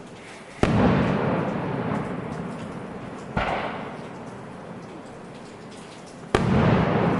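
Fireworks shells bursting: three sudden bangs, the second smaller, each followed by a long rumbling tail that fades over a couple of seconds.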